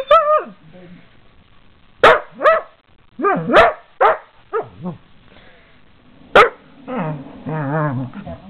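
A dog barking in short, sharp barks that come singly and in quick pairs, followed about seven seconds in by a longer, wavering growl.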